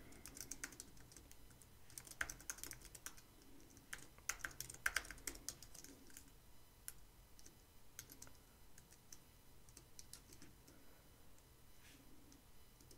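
Typing on a computer keyboard: faint, irregular keystrokes, with a few louder flurries about two and five seconds in.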